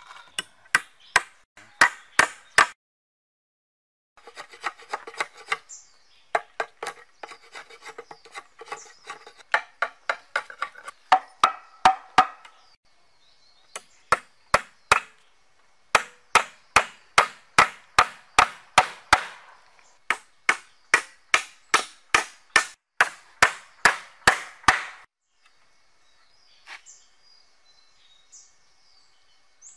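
Hatchet striking peeled wooden poles: runs of sharp blows, about two to three a second, broken by short pauses, with the blows stopping about 25 seconds in.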